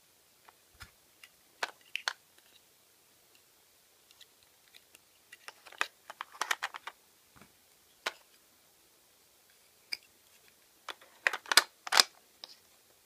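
Hard plastic toy food pieces clicking and tapping as they are set and pressed into a plastic toy lunch box, in scattered bursts of a few clicks each, the loudest cluster near the end.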